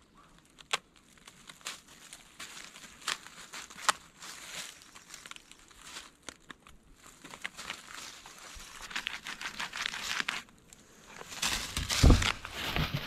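Birch bark being peeled and torn from a fallen log by hand and cut with a knife: repeated crackling, crinkling and tearing, growing denser in the second half, with a heavier thump near the end.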